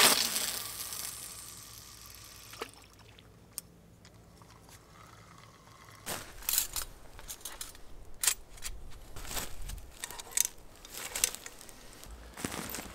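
A sudden splash-like rush of noise that fades over about two seconds, then quiet. About halfway in come irregular knocks, clinks and rustling of camping gear being handled, with footsteps on dry leaf litter.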